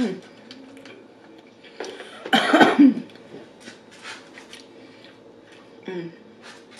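A woman coughs loudly once, a short burst about two and a half seconds in, amid small clicks of a plastic fork and soft eating sounds.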